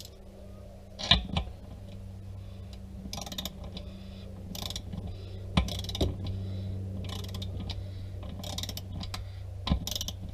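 Short bursts of rapid ratcheting clicks and a few sharper knocks as a small ratcheting torque wrench tightens the 11 mm valve-stem nut of a clamp-in TPMS sensor on an aluminium wheel. A steady low hum runs underneath.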